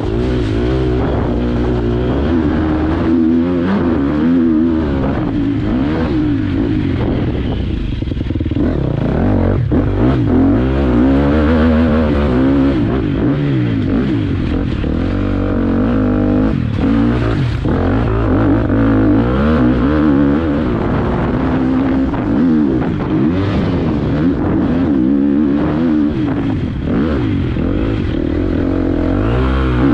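Motocross dirt bike engine ridden hard on the track, revving up and down continually as the throttle opens and closes, heard from on the bike.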